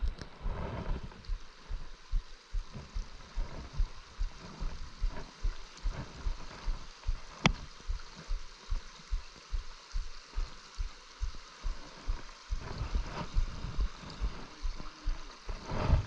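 Stream water running, overlaid by a regular low thumping about three times a second, with one sharp click about seven and a half seconds in.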